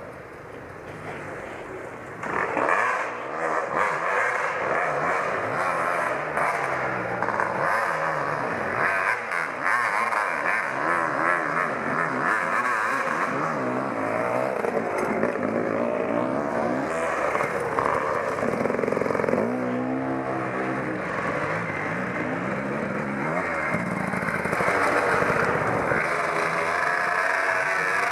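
Enduro dirt-bike engines revving as riders climb the trail and pass close by, the pitch rising and falling over and over. The engines get much louder about two seconds in.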